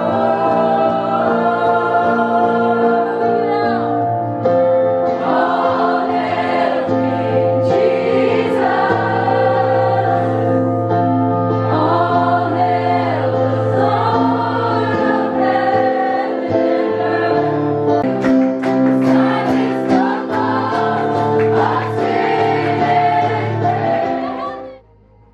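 A roomful of people singing a worship song together, led by a woman singing into a microphone over steady backing music. The music stops abruptly near the end.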